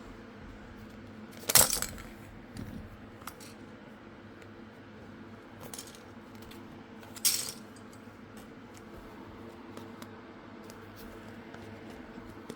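Two sharp clacks of small hard objects knocking together or being set down, about six seconds apart, with fainter clicks of handling between them, over a steady low hum.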